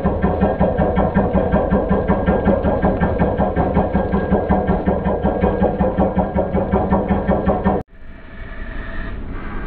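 Heavy machinery running with a steady, fast pulsing beat, which cuts off abruptly about eight seconds in and is followed by a quieter machine sound.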